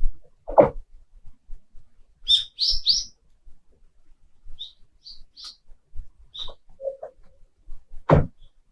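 Frozen lake ice cracking: a sharp crack about half a second in and a louder, deeper crack near the end, with short high chirps between them.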